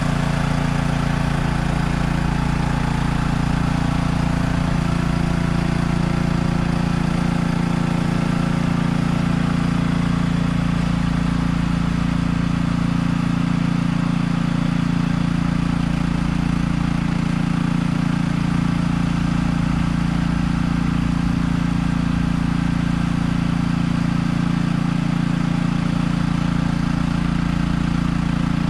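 Small engine of a drum-mounted sealcoat sprayer running steadily at constant speed, driving the pump while asphalt sealer is sprayed.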